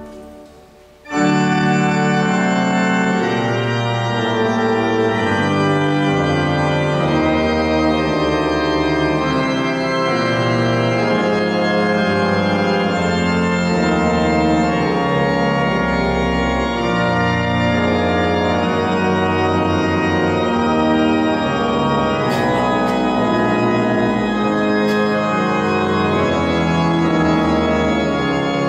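Pipe organ playing a many-voiced piece with sustained bass notes under moving upper lines, in a large reverberant church. The sound dies away at first, and the full organ comes back in suddenly about a second in.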